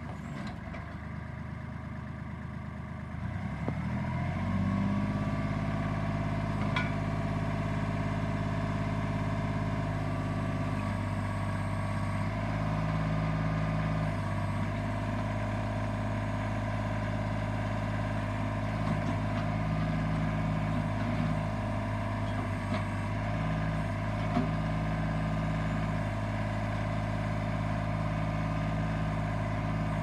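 Kubota L35 backhoe's diesel engine running. It revs up and grows louder about four seconds in, then runs steadily at the higher speed, its note shifting slightly now and then.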